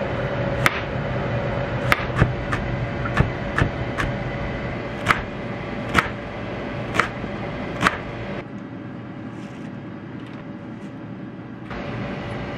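A steady machine hum with sharp clicks about once a second; about eight seconds in the clicks stop and the hum drops, coming back near the end.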